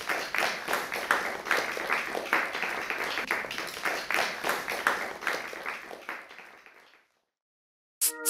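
Audience applauding, a dense patter of many hands that fades out about seven seconds in. After a second of silence, an electronic jingle starts at the very end.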